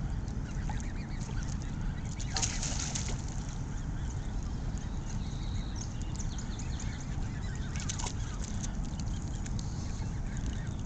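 Canada geese calling as the flock swims in close, with harsh honks about two and a half seconds in and again near eight seconds, over a steady low rumble.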